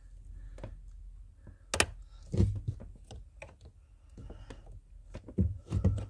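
Screwdriver and hands working the stiff hood-release handle and cable in the plastic under-dash trim: irregular plastic clicks and dull knocks. A sharp click comes a little under two seconds in, and heavier knocks come just after it and again near the end.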